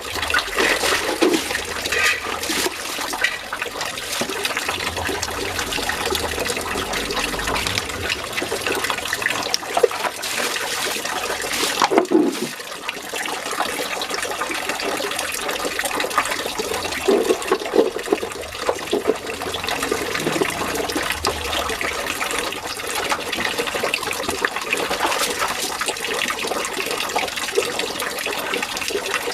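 Water running and splashing steadily, with a few louder knocks about ten and twelve seconds in.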